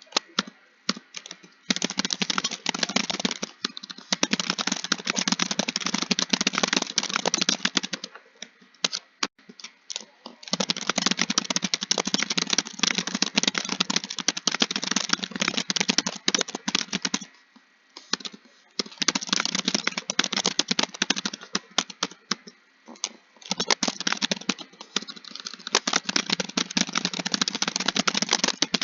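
Typing on a computer keyboard: fast, continuous runs of key clicks broken by brief pauses about 8, 17 and 22 seconds in, as a text is copied out.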